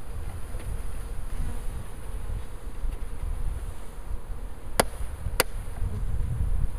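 A swarm of honey bees buzzing as a package of bees is shaken out into a hive. About five seconds in, two sharp knocks half a second apart as the wooden bee package is whacked to knock the bees loose.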